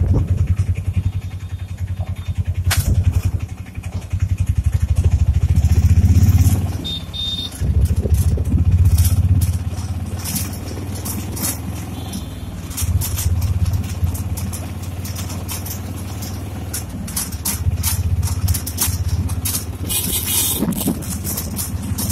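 Motorcycle engine running while riding along, heard from on board, its low pulsing note swelling twice in the first ten seconds as the throttle opens and then running steadier. Wind buffeting and crackle on the microphone come and go over it.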